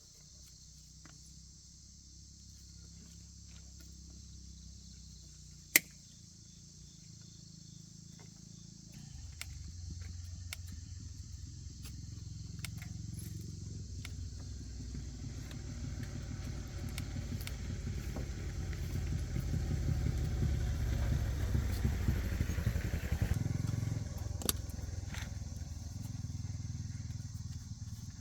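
A motor vehicle's engine running, growing louder over about ten seconds and then dropping away near the end, over steady insect chirring. A single sharp click about six seconds in.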